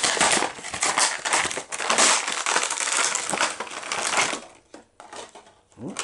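Stiff plastic packaging crackling and crunching as a boxed action figure is opened and its plastic tray handled. The crackling is dense for about four seconds, then thins to a few scattered clicks and rustles.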